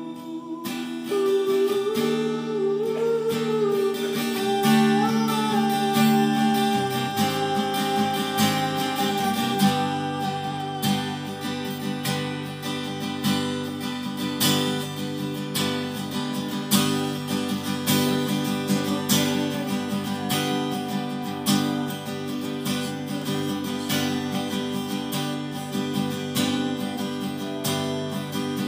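Acoustic guitar strummed in a steady, fast rhythm, with sustained chord notes ringing over the strokes.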